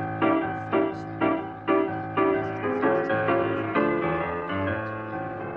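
Background piano music: notes struck about twice a second, each ringing and fading, dying away near the end.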